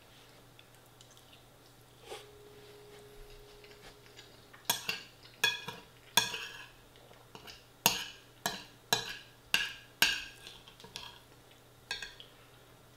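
Metal spoon clinking and scraping against a white ceramic bowl while scooping chilli con carne and rice, a dozen or so sharp clinks in quick succession from about five seconds in, after a single tap about two seconds in.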